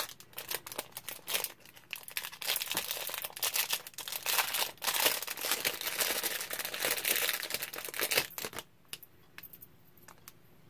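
Small clear plastic bag crinkling and rustling as it is handled and opened to take out a piece of jewelry, dying away about eight and a half seconds in, followed by a few faint clicks.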